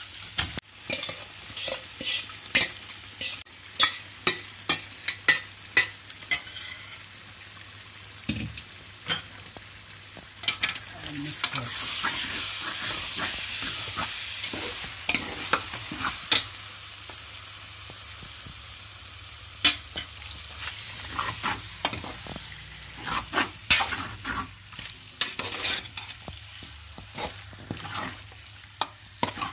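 Marinated chicken sizzling in hot oil with fried onions and chilies in a large metal pot, while a steel ladle stirs it, knocking and scraping against the pot again and again. The sizzling swells for a few seconds in the middle.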